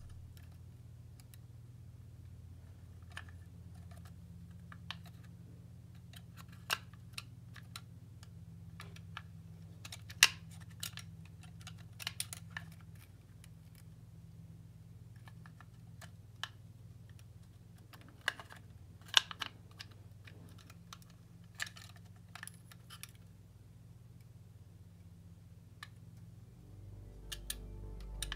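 Prepared glass microscope slides clicking against each other and their plastic slide box as fingers move them. The clicks are sharp and irregular, the loudest about ten seconds in and again near nineteen seconds, over a steady low hum.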